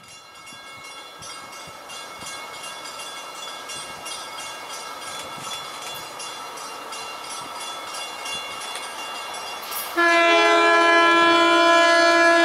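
An approaching train: a faint steady tone with many overtones grows slowly louder. About ten seconds in, a loud air horn chord sounds for just under three seconds.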